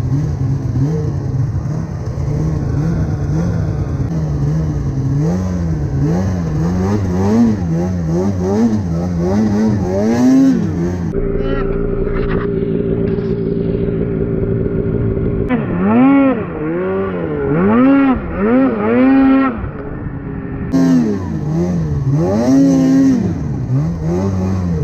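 Snowmobile engine revving up and down over and over as the sled is ridden, its pitch swinging about once a second, with a few seconds of steadier running in the middle.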